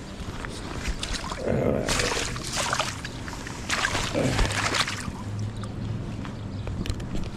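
Water splashing and sloshing in two bursts about two seconds apart.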